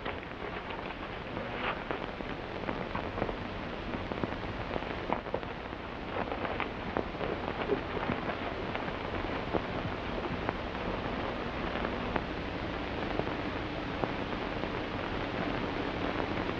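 Steady crackling hiss with scattered irregular clicks, the surface noise of a 1929 optical soundtrack. A faint steady hum comes in a few seconds before the end.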